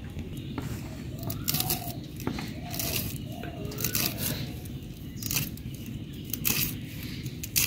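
Cabbage being sliced on a boti, a curved blade held upright on a stand, in short irregular cutting strokes about one a second.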